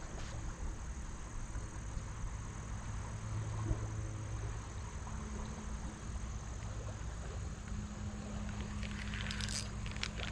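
Steady riverside background: an even hiss with a low hum underneath, and a few faint ticks near the end.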